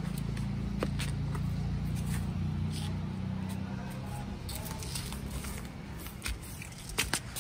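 A low engine hum, loudest over the first four seconds or so and then fading away, with scattered light clicks and rustles.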